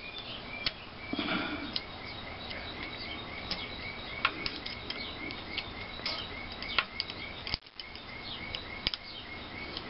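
Small metal clicks and taps of pliers opening cotter pins on the engine's valve springs. Behind them runs a steady series of short high chirps, about three a second.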